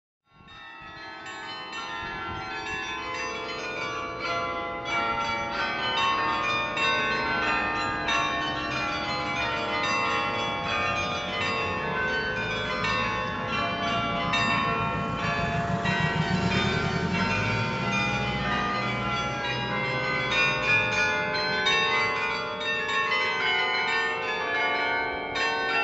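Atkinson's Carillon, a set of 23 tower bells played from a lever console, ringing out a tune in many overlapping bell notes. The bells fade in over the first couple of seconds.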